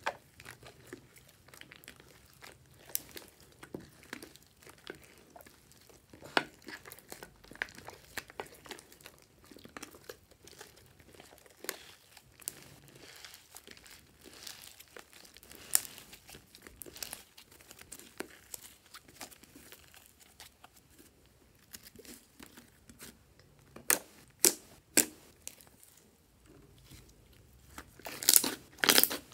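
Hands kneading, stretching and folding thick slime in a glass dish: irregular sticky clicks, pops and tearing crackles as the slime pulls apart and is pressed down, with a cluster of louder pops near the end.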